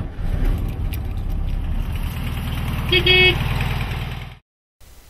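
Classic air-cooled Volkswagen Beetle engine idling steadily, with a short beep about three seconds in. The sound cuts off suddenly near the end.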